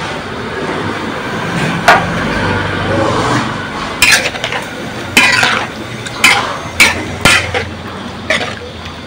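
Metal spatula working food in a wok. A noisy rush swells over the first few seconds, then comes a string of about seven sharp metallic clanks and scrapes against the pan.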